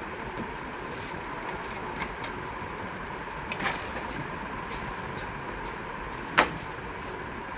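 Scattered light clicks and knocks of parts being handled on a desktop PC during a motherboard swap, with one sharper knock about six seconds in, over a steady background hiss.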